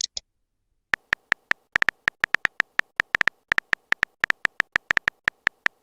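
Phone keyboard typing sound effect: a fast, irregular run of short sharp clicks with a slight beep to each, starting about a second in.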